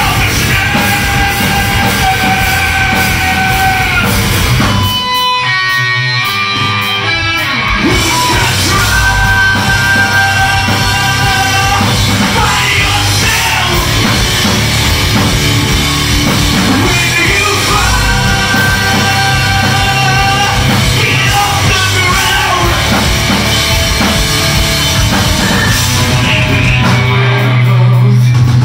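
Heavy rock band playing live: electric guitars, bass and drum kit with shouted vocals. About five seconds in, the drums and bass drop out for a few seconds, leaving a run of single guitar notes, then the full band comes back in.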